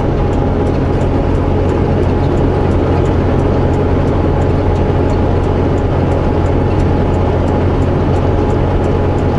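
Semi truck's diesel engine running steadily, heard from inside the cab as a deep even drone, with a faint regular ticking about two or three times a second.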